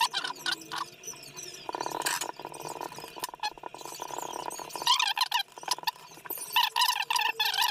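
Handling noise of rubber-gloved hands working wire cores into a plastic terminal block and tightening its screws with a screwdriver: many sharp clicks, a couple of seconds of rapid creaking, and squeaks of glove and plastic rubbing near the end.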